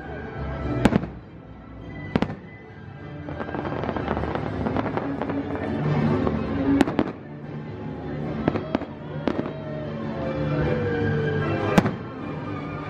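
Aerial fireworks bursting overhead: a handful of sharp bangs, the loudest about a second in and near the end, with lighter crackles between. Music plays throughout underneath.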